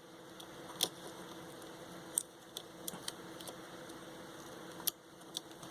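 Light clicks and scratches of hand tools working on a headset's circuit board and its metal shielding: about half a dozen short sharp ticks over a faint steady hum.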